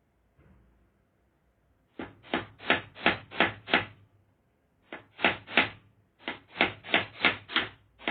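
Hammer driving nails: quick, evenly spaced blows, about three a second, in three runs of six, three and five strikes with short pauses between.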